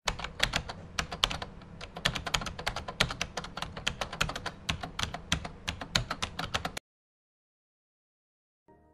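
Computer keyboard typing sound effect: rapid key clicks, several a second, for about seven seconds, then cutting off suddenly.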